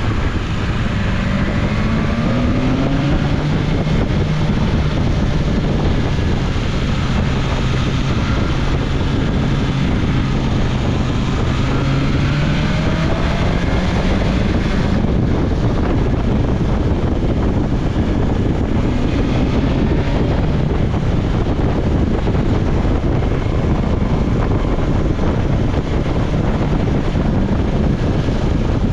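BMW S1000XR's inline-four engine running under way, its pitch rising with the revs a couple of times in the first half. Heavy wind noise on the action camera's microphone runs throughout and covers most of the engine in the second half.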